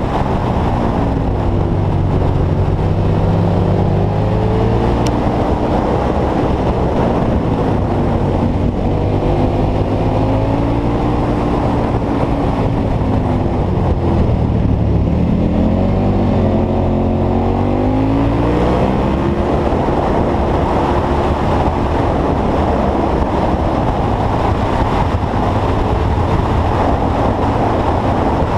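KTM 1190 Super Adventure S V-twin engine under way on a winding road, its revs falling and rising again as it slows into bends and pulls out of them, strongest in the middle. Heavy wind rush runs underneath throughout.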